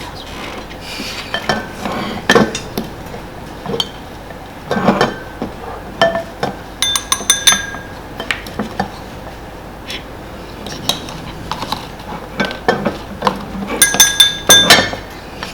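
A spoon clinking and scraping against serving bowls while a creamy dessert is spooned out: scattered knocks and taps, with two short runs of ringing clinks, one about halfway through and another near the end.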